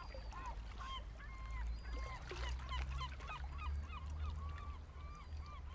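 A flock of birds calling faintly, many short hooked calls, two or three a second, over a low steady rumble.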